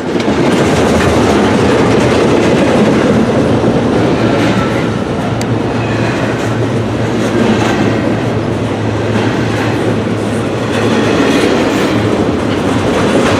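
Freight cars of a long CSX freight train rolling past close by, steel wheels running on the rails in a loud, steady rolling noise.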